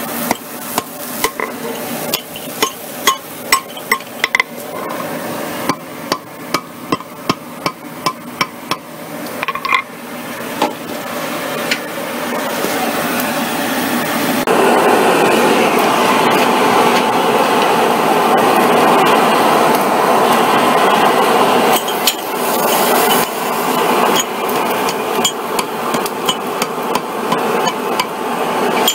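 Hand hammer striking a red-hot mild-steel chain link on a steel anvil: a quick run of ringing blows, about two to three a second, through the first ten seconds. It is followed by a loud, steady rushing noise for about eight seconds, and then the hammer blows start again near the end.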